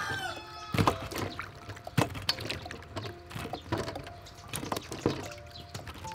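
Wet rose apples being set into a woven bamboo basket: water dripping off the fruit and a few soft knocks as the pieces are put down.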